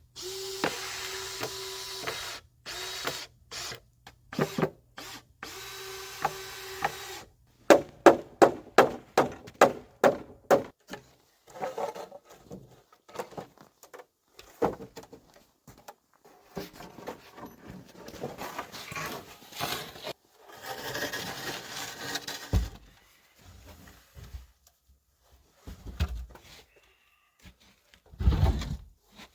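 Power drill running in several short bursts, driving screws into wood. It is followed by a fast run of sharp knocks, then scattered knocks and rubbing of lumber being worked.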